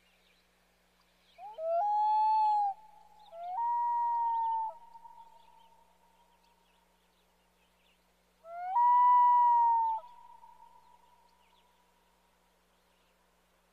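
Common loon wailing: three long calls, each swooping up quickly and then held at a steady pitch for about a second, the second a little higher than the first. An echo trails after each call.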